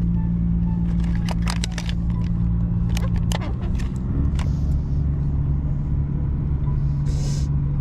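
An engine running steadily with a low hum, its pitch dropping slightly about three and a half seconds in. A few sharp clicks and taps come in the first half, and a short hiss near the end.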